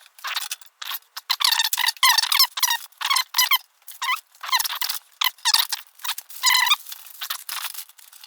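Packing foam squeaking in a rapid run of short, high-pitched squeaks as camera gear is pressed and shifted in its tight-fitting cut-outs.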